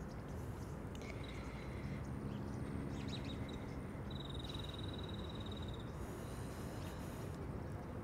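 Quiet outdoor background: a steady low noise with a few short high bird chirps, and about four seconds in a high trill lasting about two seconds.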